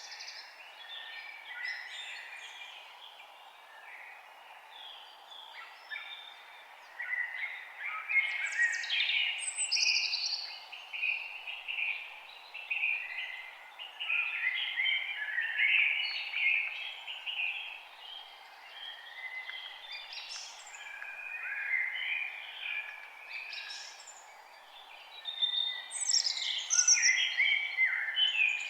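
Several forest birds singing, their overlapping song phrases following one another with hardly a break, over a faint steady background hiss.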